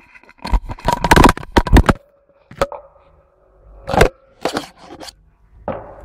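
Handling noise from the camera: loud knocks, scrapes and rubbing as hands grip and move it. There is a dense run of them in the first two seconds, then a few separate knocks spaced out over the rest.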